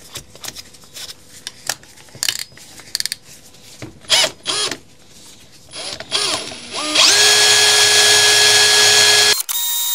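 Makita 40V XGT cordless drill spinning the chainsaw motor's armature while a commutator-cleaning stone is held against the commutator bars. Clicks of the rotor being fitted in the chuck come first, with short trigger pulses about four and six seconds in. The drill then runs steadily with a whine and a grinding hiss for about two seconds and stops suddenly near the end.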